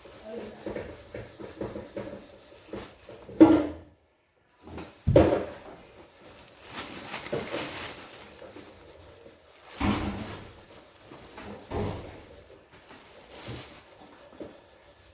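Kitchen handling sounds: a handful of separate knocks and bumps, like drawers or cupboards being opened and shut, with softer clatter and rustling between them.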